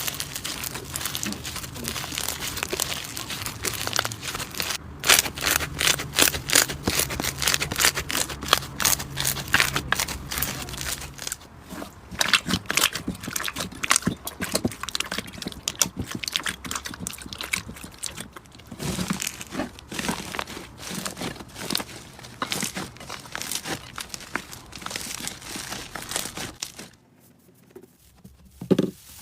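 Slime being squeezed and pressed by hand, with dense, irregular crackling and popping. A brief lull comes near the end.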